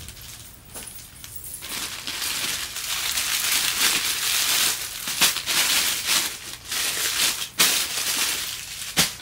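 Clear plastic packaging crinkling and rustling as clothing is handled in and pulled out of it, with a few sharp crackles, growing louder about two seconds in.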